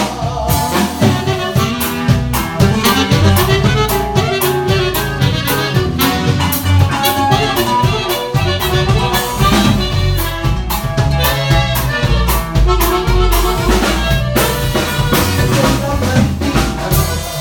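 Instrumental break of a norteño song: a band plays a melody line over a steady drum-kit beat and bass, with no singing.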